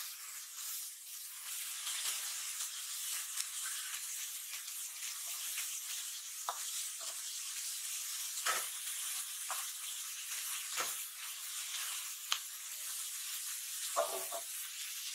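Ridge gourd, onion and spices frying in hot oil in a wok, a steady sizzle. A metal spatula scrapes and clinks against the wok a few times, with a louder clatter near the end.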